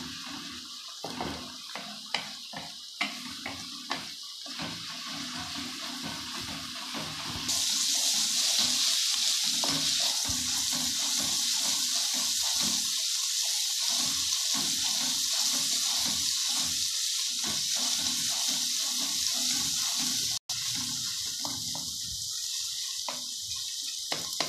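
Chopped onions and tomatoes sizzling in hot oil in an aluminium pot, being fried into a masala base while a wooden spatula stirs them, scraping and knocking against the pot a few times in the first seconds. The sizzle gets louder and stays that way from about a third of the way in.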